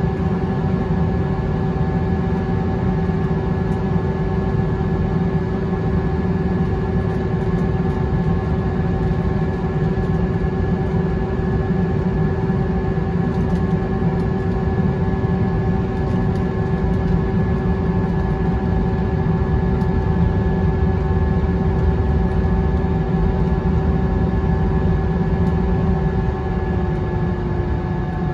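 Airbus A320's CFM56 turbofan engines at taxi idle, heard inside the cabin: a steady whine over a low rumble, the whine dipping slightly in pitch near the end.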